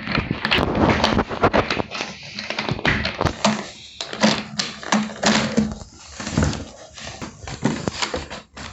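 Plastic toy figures and playset pieces clicking and knocking together as they are handled, many short clacks in quick, uneven succession.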